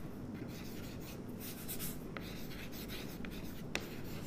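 Chalk writing on a blackboard: scratchy strokes broken by a few sharp taps as the letters are formed.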